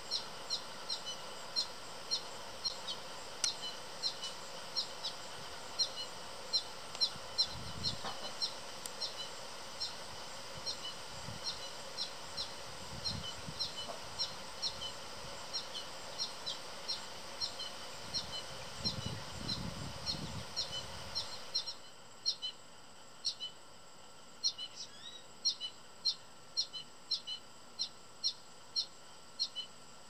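Fledgling American goldfinch begging for food: a steady, rapid series of short high chirps, about two a second.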